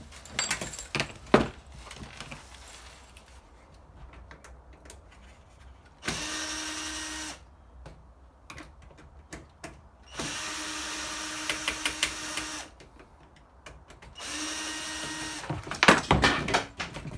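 Power drill run in three short bursts of a steady whine, each one to two and a half seconds long, with clicks and knocks of handling between them.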